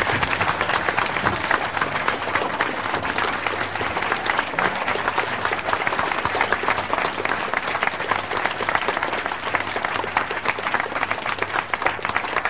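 An audience applauding steadily, many hands clapping at once, with a steady low hum underneath from a portable cassette recording.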